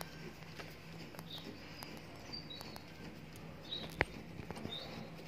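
Screwdriver backing out the small cylinder-retaining screw from the steel faceplate of an armored door's mortise lock: faint metal scraping and light clicks, with one sharp click about four seconds in.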